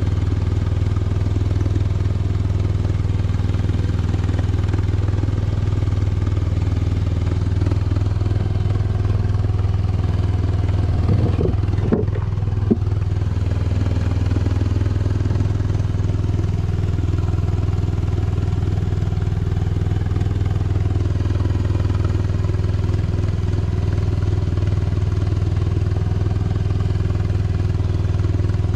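Steady drone of a fishing boat's engine running at a constant pace, a low hum with no change in speed. A couple of short knocks sound about twelve seconds in.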